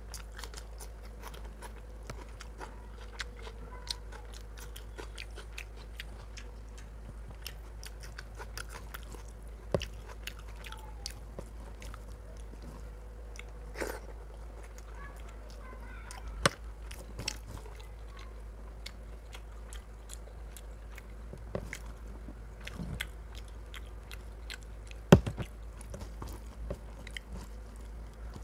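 Close-miked chewing and biting of rice and chicken curry eaten by hand, with many small wet clicks as fingers work the rice on a steel plate. A few sharper knocks stand out, the loudest near the end, over a steady low hum.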